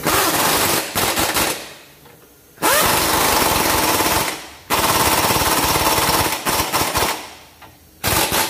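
Pneumatic impact wrench hammering in several long bursts with short pauses, tightening the lower control arm mounting bolts.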